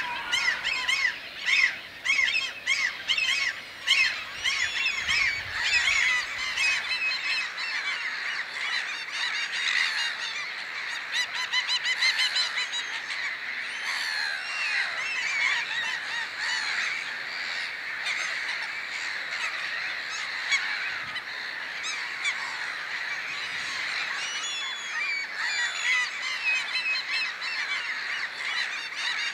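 A flock of birds calling: short arching calls come several a second at first, then thicken into a dense, overlapping chorus of many birds after several seconds.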